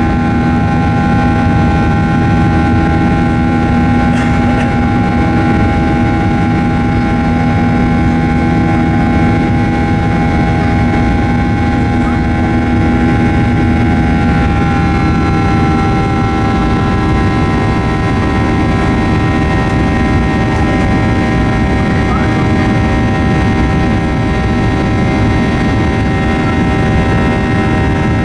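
CFM56-7B turbofan engine of a Boeing 737-800 heard from inside the cabin while climbing after takeoff: a loud, steady roar carrying the buzzsaw drone of many steady tones from the fan. About halfway through, the tones step slightly lower and a few of them drop away.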